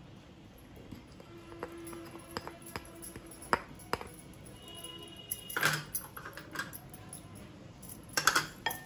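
Soft background music under scattered light clicks of kitchenware. Two louder clatters come about five and a half and eight seconds in.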